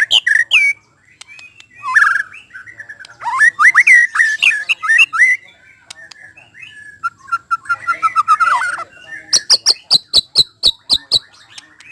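White-rumped shama singing: phrases of varied whistles sliding up and down, with short pauses between. Near the end comes a fast run of sharp ticking notes, about five a second.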